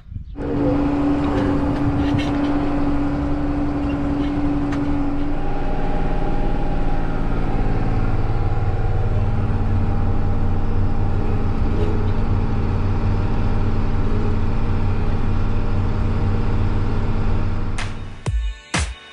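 Farm tractor engine running steadily under load, with a steady whine that shifts in pitch about five seconds in. Music with a sharp beat comes in near the end.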